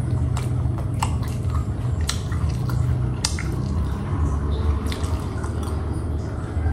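A person chewing a soft eggplant dish close to the microphone, with wet mouth sounds and a few sharp clicks, over a steady low hum.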